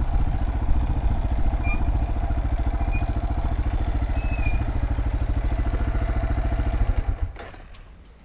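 Dirt bike engine running at low speed with a rapid, even pulse as the bike rolls along, then switched off about seven seconds in and quickly dying away.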